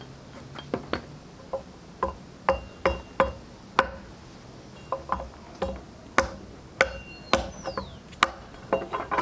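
A hand tool striking a piece of wood on a log block: a series of sharp knocks, roughly two a second, each with a short woody ring, as a piece is chopped off.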